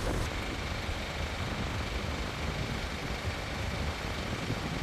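Steady low rumble under an even hiss, with a faint high steady tone.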